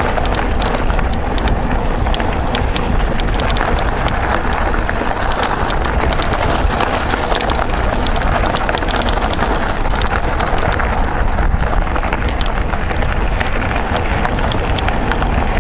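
Mountain bike rolling over a rough track: steady tyre noise with constant small rattles and clicks from the bike, under a heavy wind rumble on the microphone.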